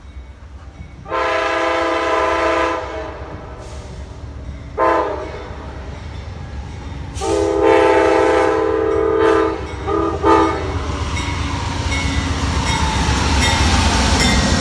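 Air horn of an Amtrak GE P42DC locomotive, several chimes sounding together. It gives a long blast, a short one, another long blast, then two quick short toots. After that the rumble and wheel noise of the approaching train grow steadily louder.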